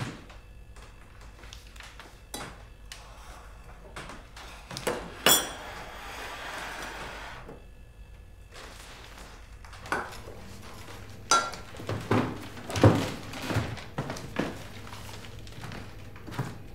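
Breakfast tableware handled at a kitchen table: scattered clinks of spoons, cups and jars and light knocks on the table. There is one loud ringing clink about five seconds in, then a short soft hiss, and a busier run of clinks and knocks later on.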